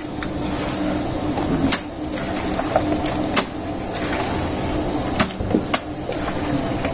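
Hand mixing marinated raw chicken pieces in a large aluminium pot: wet squelching with about five sharp slaps as the meat is turned over, over a steady background hum.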